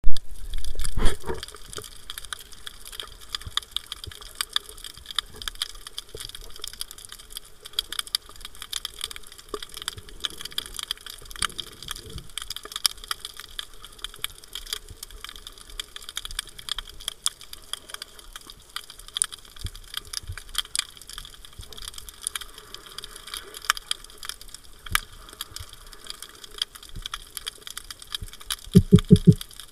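Underwater ambience over a shallow rocky reef, recorded through a camera housing: a steady, dense crackle of tiny clicks. A loud low thump comes about a second in, and a short run of low pulses near the end.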